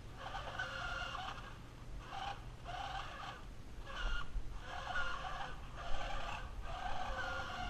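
Electric motor and plastic gearbox of a 1986 New Bright 1957 Chevrolet Bel Air remote-control car whining and grinding loudly in short spurts, about seven times, as it is driven in stops and starts. The loud grinding is a noise the toy now makes whenever it runs.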